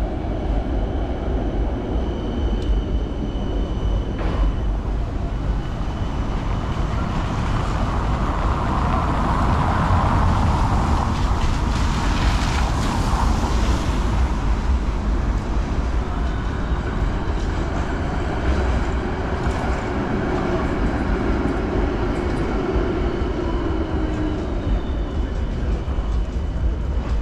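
Helsinki street tram running past, over a steady low rumble of city traffic that swells loudest about ten to thirteen seconds in.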